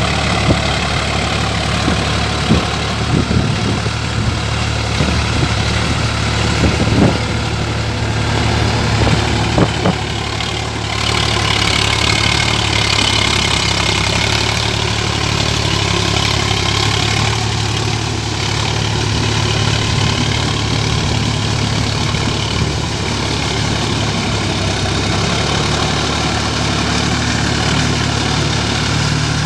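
Sonalika tractor's diesel engine running steadily with a low, even note, with a few sharp knocks and clatters in the first ten seconds.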